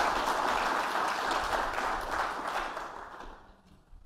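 Audience applauding, a dense patter of many hands clapping that dies away about three seconds in.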